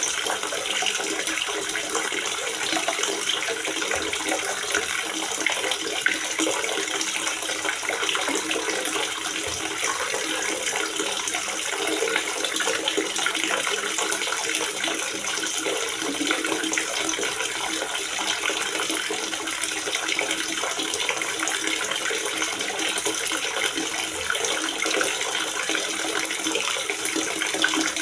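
Water gurgling and splashing steadily into a water reservoir, a constant bright trickling with no pauses.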